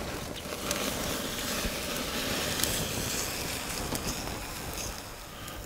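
Prime rib roast searing over a hot charcoal fire on a kettle grill: a steady sizzling hiss with faint crackles as dripping fat flares up in open flames.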